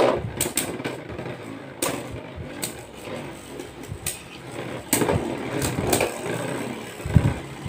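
Two Beyblade Burst tops whirring as they spin in a clear plastic stadium, with sharp clacks every second or so as they collide.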